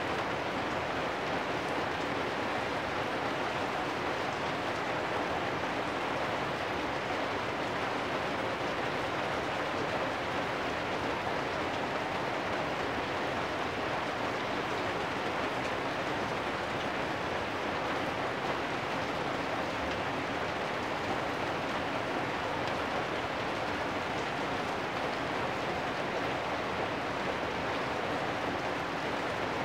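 Steady rain falling on corrugated metal roofs, an even hiss that does not let up or change.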